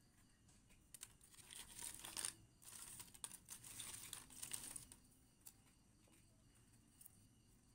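Dry agarwood chips rustling and scraping against one another as a hand rummages through a pile of them. The faint, scratchy rustle comes in bursts for a few seconds and dies away about five seconds in, leaving a couple of small clicks.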